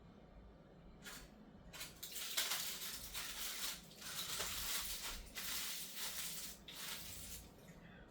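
A paper food wrapper being crumpled and rustled in irregular bursts for several seconds.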